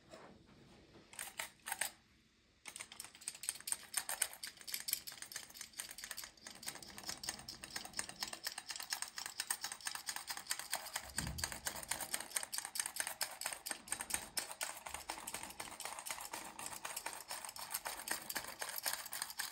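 Powdered-sugar sifter being shaken over a roll: after a few short taps, a fast, steady run of light clicks and rattles begins about two and a half seconds in and keeps going.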